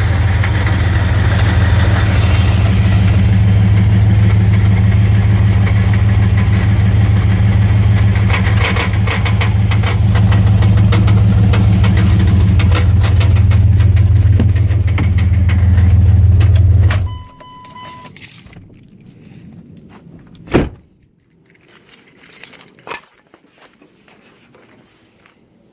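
1999 Dodge Ram 1500's 5.9 V8 idling in park with a rattle, which the owner suspects comes from the flex plate or torque converter. The engine shuts off suddenly about two-thirds of the way in, followed by a short beep and, a few seconds later, a single thump.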